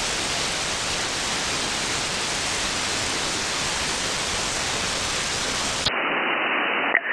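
Steady hiss of static from an RTL-SDR receiver's audio output. About six seconds in it suddenly turns duller and narrower as the receiver is switched to upper sideband.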